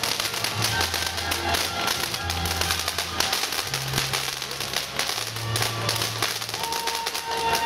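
Music with a low bass line changing note every second or so, over the dense crackle and hiss of ground fireworks fountains spraying sparks.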